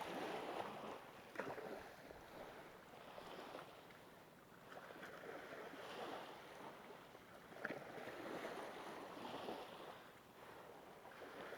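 Faint waves washing in on the shore, swelling and fading every second or two, with two short clicks.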